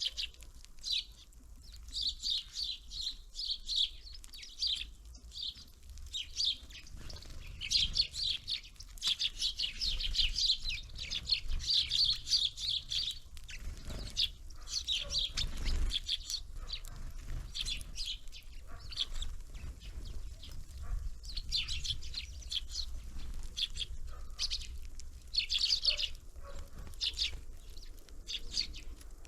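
Several birds at a feeder chirping and twittering, with rapid short calls going on almost without a break and a few soft knocks in the middle.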